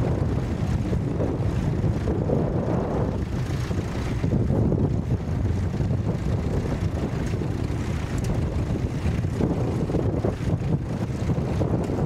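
Vintage tractor engines running steadily, with wind buffeting the microphone.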